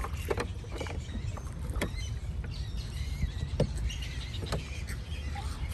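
Rowboat being rowed on a lake: oars dipping and splashing in the water, with a few sharp knocks every second or two over a low steady rumble.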